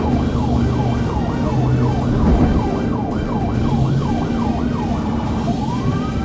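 Police car siren on the rapid yelp setting, sweeping up and down about three times a second. Near the end it switches to a slow rising wail. Vehicle engine and road noise run underneath.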